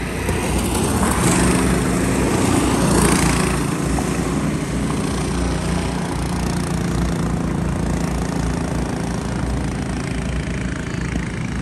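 Small single-cylinder four-stroke Predator kart engines running as karts lap the track. One kart passes louder in the first few seconds, its pitch rising and falling, then the engine note settles to a steadier run.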